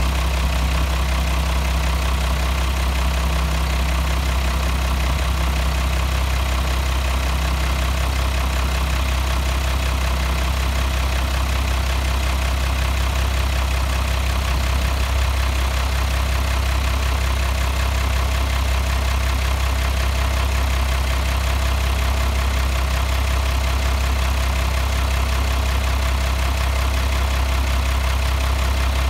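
1994 International DT360 inline-six turbo diesel idling steadily.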